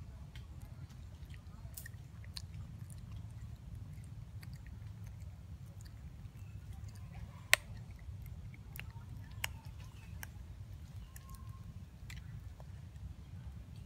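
Steady low rumble with scattered small clicks and ticks. One sharp click, much louder than the rest, comes about halfway through.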